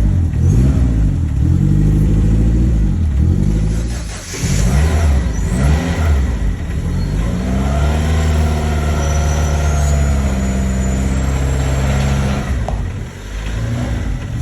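Ford Escort RS Turbo Series 1's 1.6-litre turbocharged four-cylinder engine running rough, its revs rising and falling several times, then holding steadier as the car moves under its own power for the first time since the rebuild.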